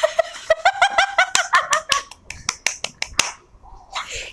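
A person laughing in quick, repeated bursts along with rapid sharp claps, about eight a second, that go on to about three seconds in.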